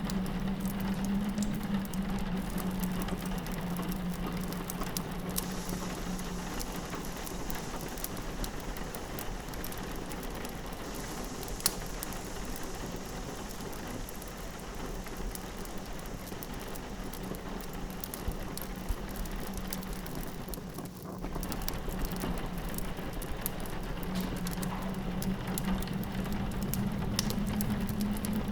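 Ambience mix of rain pattering on a window and a fireplace crackling with scattered sharp pops, over a low wind howl that eases in the middle and swells again near the end.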